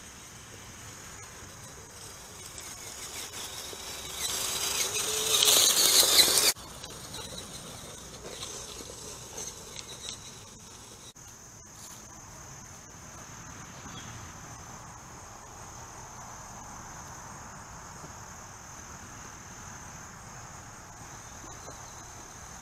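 Steady high-pitched insect chorus, typical of crickets. A few seconds in, a louder rushing noise builds over about three seconds and cuts off abruptly.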